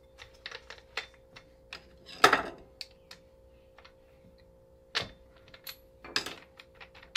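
Light metallic clicks and taps from an angle grinder as its thin cutting disc and flange nut are taken off by hand to change the disc, with a louder clack about two seconds in and another about five seconds in.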